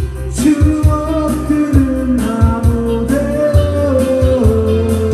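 A man singing a Korean pop ballad into a microphone over a karaoke backing track with a steady drum beat.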